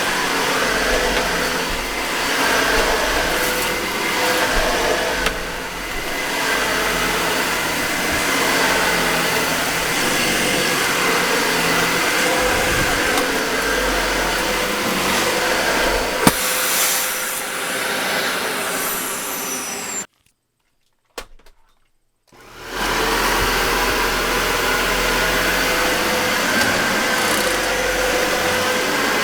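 Dyson Ball Multi Floor upright vacuum cleaner running on carpet, a steady motor whine with a sharp click about halfway through. The sound cuts out for about two seconds roughly two-thirds of the way in, then comes back and runs on.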